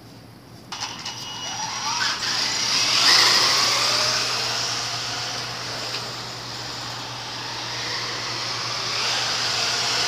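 RC car's motor whining as the car sets off, starting suddenly about a second in and rising in pitch as it speeds up, then running on steadily at speed.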